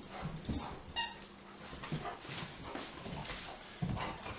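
Airedale terrier making soft whimpering sounds, a few short faint noises scattered through.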